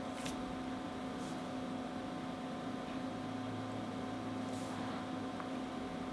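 Steady electrical hum with an even hiss, with a few faint, brief rustles about a quarter second, just over a second and about four and a half seconds in.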